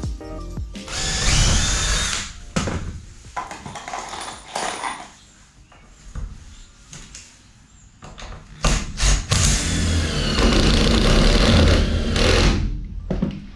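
Cordless drill driving self-drilling Teks screws through a wooden stud of the wall framing, in two runs: a short one about a second in, and a longer one from past the middle until near the end, each starting with a rising whine.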